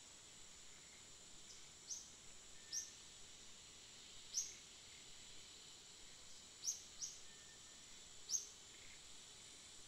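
Quiet outdoor ambience: a steady high insect drone, with short, high bird chirps every second or two.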